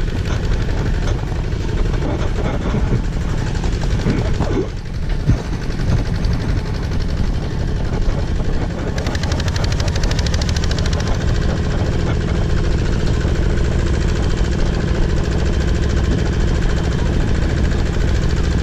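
Tractor engine running steadily while pulling a passenger trailer over a rough dirt track, heard from the trailer, with a brief dip about five seconds in.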